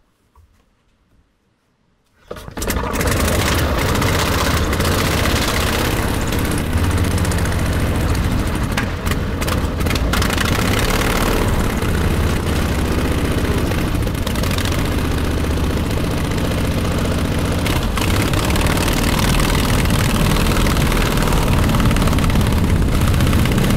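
1920s Harley-Davidson motorcycle engine on a homebuilt light airplane, started by hand-propping: it catches about two seconds in and then runs loud and steady, turning the wooden propeller.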